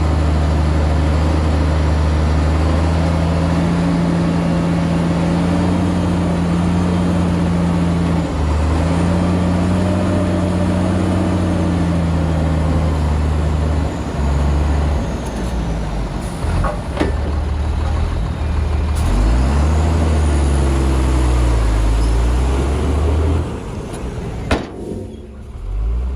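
Heavy diesel engine of a dump truck or bulldozer running under load, its pitch rising and falling as it revs. There are a few sharp knocks past the middle, and near the end the engine drops quieter and a single sharp click sounds.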